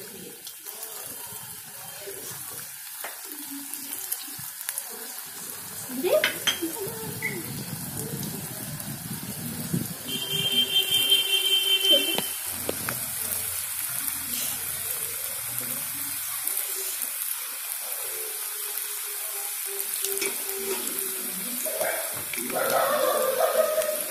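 Potato-stuffed mini samosas deep-frying in hot oil, a steady sizzle, with a few light clicks.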